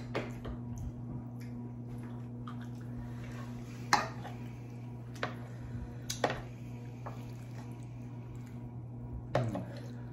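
Forks and a spoon clinking and scraping on a serving plate of pasta, with three louder clinks about four seconds in, around six seconds and near the end, and soft wet eating sounds over a steady low hum.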